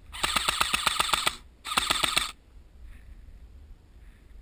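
Airsoft M4 electric rifle (AEG) firing two full-auto bursts, the first about a second long and the second about half as long, each a fast, even string of shots.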